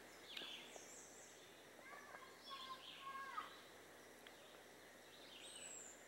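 Near silence: quiet woodland ambience with a few faint, high bird chirps, one falling near the end, and a faint far-off call about two to three seconds in.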